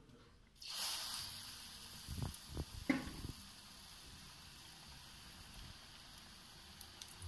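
Batter-coated green chilli dropped into hot oil for mirchi bajji: the oil bursts into sizzling about half a second in, then keeps up a steady frying hiss. A few short low knocks come a couple of seconds in.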